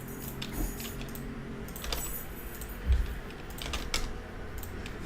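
Scattered clicks of computer keys over a low steady hum, with the loudest click about three seconds in.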